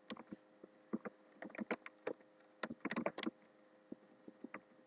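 Faint keystrokes on a computer keyboard: scattered single clicks, with quicker runs of several about one and a half and three seconds in.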